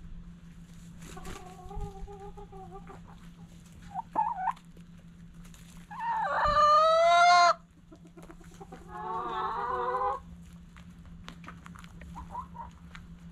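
Chickens clucking and calling in a series of separate pitched calls. The loudest and longest, about a second and a half, comes some six seconds in.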